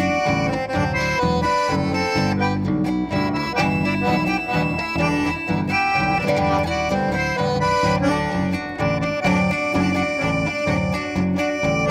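Chamamé played on a piano accordion carrying the melody in held and moving notes, over acoustic guitar and bass guitar keeping a steady pulsing rhythm.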